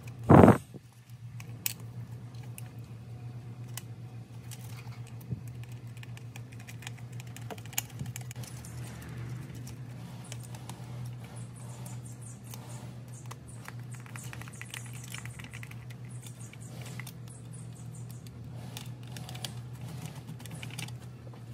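Light clicks and taps of small plastic parts and wires being handled while a circuit board is fitted back into a singing fish's plastic housing, over a steady low hum. One loud, short knock comes just under a second in.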